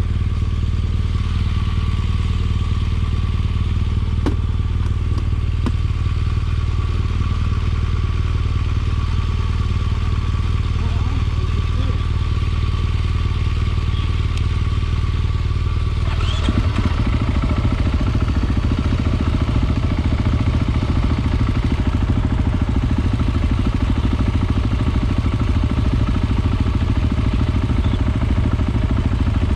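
Motorcycle engine running steadily at idle. About sixteen seconds in, its low running note becomes fuller and more pulsing and stays that way.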